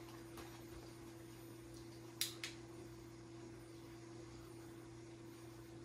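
Quiet room tone with a faint steady hum, broken by two light clicks a quarter-second apart about two seconds in.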